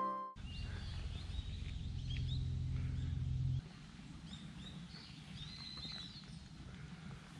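Small birds chirping in the background over outdoor ambience, with a steady low rumble that cuts off about three and a half seconds in.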